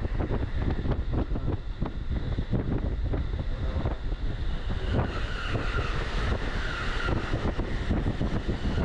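Commuter train running, heard from inside the carriage: a steady low rumble with rapid knocking of the wheels over the rails. About five seconds in, a louder hiss joins as another train passes close alongside on the next track.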